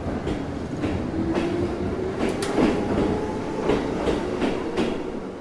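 Battery-powered Plarail toy train running along plastic track: a steady motor whir with a faint low hum, and wheels clicking over the rail joints about twice a second.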